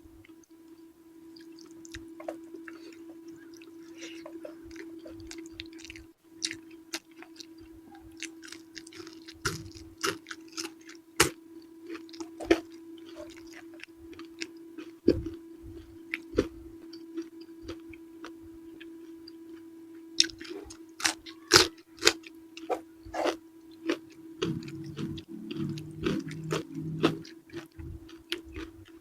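Close-miked chewing and biting of eggplant with chili sambal: irregular wet smacks and crunchy clicks, busiest in the second half, over a steady low hum.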